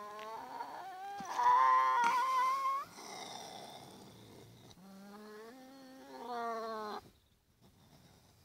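Young raccoon dog caught in a cage trap, giving long drawn-out whining calls. The first is the loudest and rises in pitch as it ends, about three seconds in. A second long call comes about five seconds in and stops abruptly about two seconds later.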